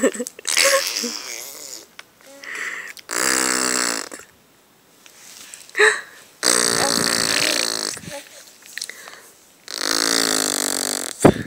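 Fart noises made with the mouth, by blowing raspberries through the lips. There are three long buzzing ones of a second or more each, with shorter, quieter ones between them.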